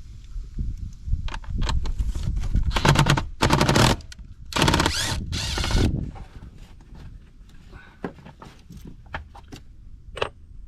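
Small impact tool running in four short bursts about three to six seconds in as it spins out the 8 mm bolts of the air filter housing, with light clicks and clatter of tool and parts before and after.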